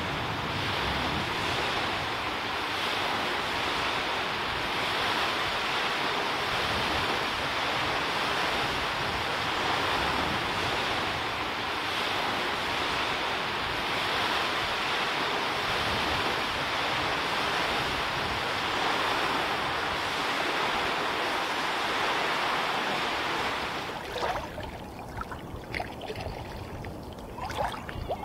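Small waves breaking and washing onto a sandy beach, a steady rush of surf. About 24 seconds in it gives way to quieter, closer water: small splashes and drips, and water lapping at the side of a kayak.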